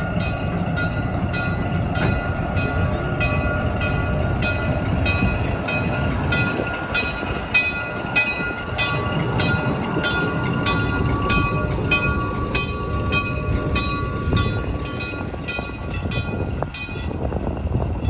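A train rolling past on jointed track, its wheels clicking over the rail joints about two to three times a second over a low rumble, with a steady high-pitched whine from the wheels on the rails.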